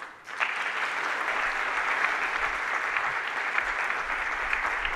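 An audience clapping. The applause starts about half a second in and keeps up at a steady level.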